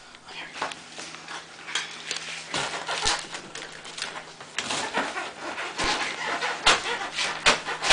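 Large cardboard shipping box being worked open by hand, likely with a box cutter: irregular rustles, scrapes and knocks of cardboard, several sharper knocks in the second half.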